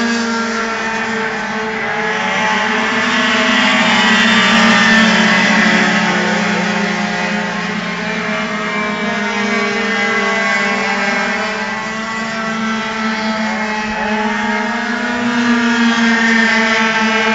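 Several tuned two-stroke racing scooters running hard at high revs, their engine notes overlapping and rising and falling as they change speed and pass. The sound is loudest about four to six seconds in.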